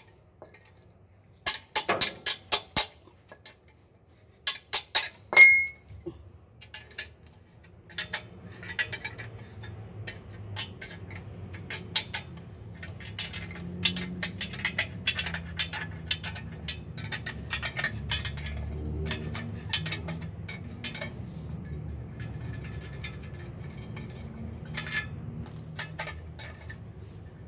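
Wrench clinking against the clutch pressure-plate bolts as they are undone, in bursts of sharp metallic clicks, with a low steady rumble joining from about eight seconds in.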